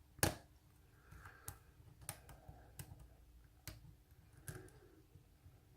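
Faint, irregular clicks and taps of a hook pick working the pins of a pin-tumbler lock cylinder under tension, while the lock sits in a false set. One click a quarter-second in is the loudest.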